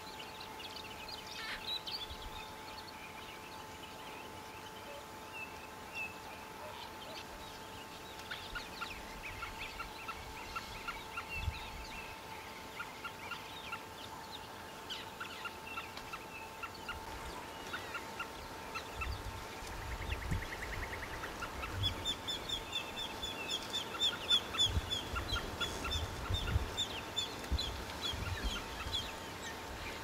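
White-faced whistling ducks calling with repeated short, high whistles, scattered at first and building to a busy run of rapid whistles in the second half. A faint steady hum and occasional low rumbles lie underneath.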